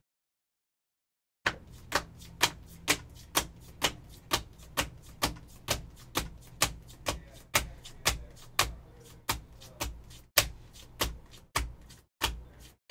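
Sharp clicks in an even rhythm, a little over two a second, over a faint low hum, starting about a second and a half in.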